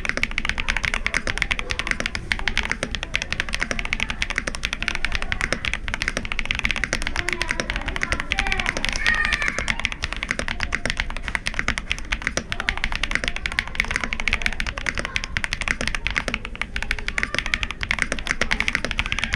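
Fast, continuous typing on a KBD67 Lite R3 65% mechanical keyboard fitted with Zaku switches: a dense, steady run of keystroke clacks.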